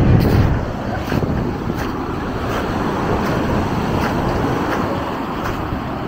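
Wind rushing over the microphone with beach surf beneath, a heavier gust in the first second, and faint regular footsteps about every three-quarters of a second.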